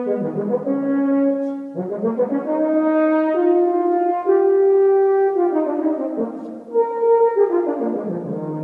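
Unaccompanied euphonium playing a slow solo melody of long held notes, climbing to higher notes in the middle, with a brief break about two-thirds of the way through before the next phrase.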